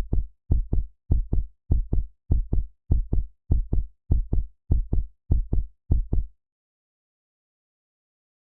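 Heartbeat sound effect: a steady double beat of low thumps, about eleven beats at roughly 100 a minute, that stops about six seconds in and leaves silence.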